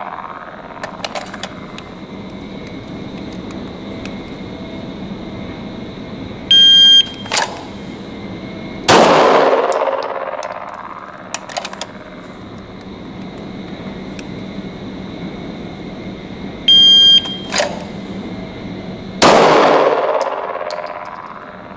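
A shot timer beeps, and about two and a half seconds later a 9mm Glock 17 pistol fires, drawn from the holster, its report echoing in an indoor range. The beep-then-shot sequence happens twice.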